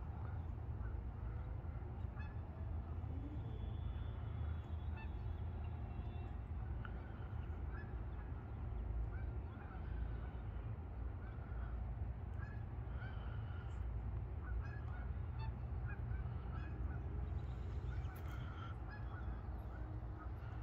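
A flock of geese honking, many short calls overlapping throughout, over a low rumble of wind on the microphone.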